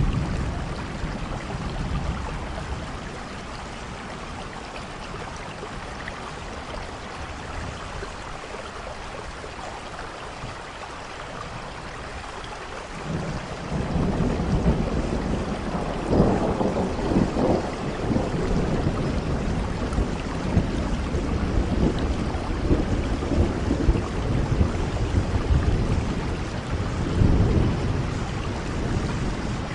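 Steady rain falling, with thunder: a low rumble swells in about halfway through and rolls on in waves, peaking again near the end.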